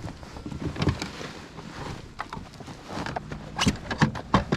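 Irregular knocks, taps and clatter as a bass is handled and laid on a fish measuring board in a kayak, the loudest few knocks close together near the end.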